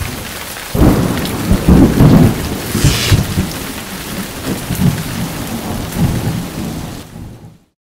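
Thunderstorm sound effect: a steady hiss of rain with deep rolls of thunder, the strongest about one to two seconds in, fading away near the end.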